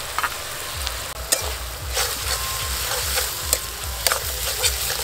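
Onion and garlic paste frying in mustard oil in a metal kadai, sizzling steadily while a metal spatula stirs it, scraping the pan with a few sharp clicks.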